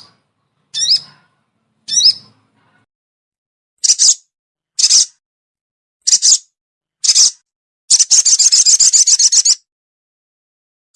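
Sogon bird calls played as a lure recording. A few short high chirps that rise and then drop, about one a second, are followed by four shorter, sharper calls. The sequence ends in a rapid chattering trill lasting about a second and a half.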